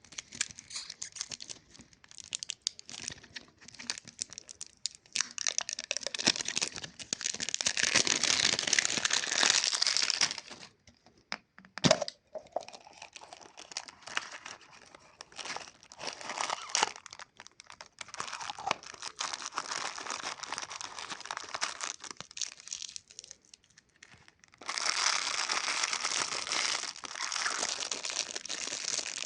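Plastic lollipop wrappers crinkling and tearing as they are handled and unwrapped, in uneven bouts with the loudest rustling about a third of the way in and near the end. A single sharp crack comes near the middle.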